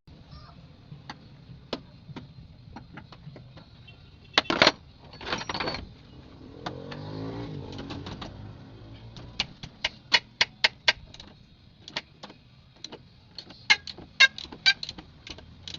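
Scattered sharp metallic clicks and knocks of hand tools at work on a truck body being dismantled, with a short rasping scrape about five seconds in and quick runs of clicks about ten seconds in and again near the end.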